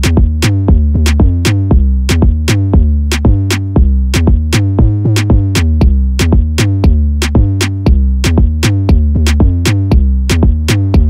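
Electronic background music with a steady drum-machine beat and a deep bass line.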